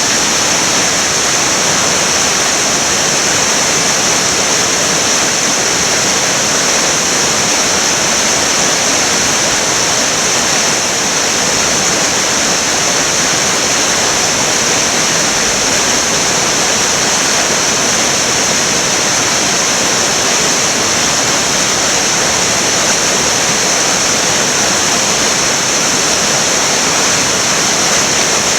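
Río Cuadros in spate, a river running high and fast over rocks with a loud, steady rush of water.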